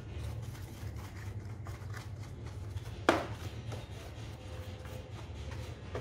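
Small paintbrush scrubbing the plastic dust compartment of an Electrolux canister vacuum: quick, repeated brushing strokes. One sharp knock about halfway through is the loudest sound.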